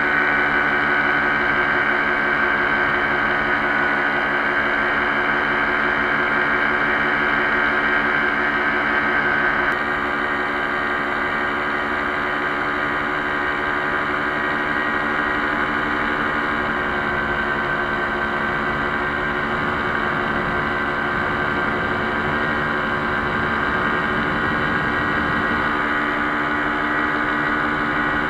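A paramotor's engine and propeller running steadily at cruise power in flight. About ten seconds in the level drops slightly and the tone shifts, as the footage cuts to another stretch of the flight.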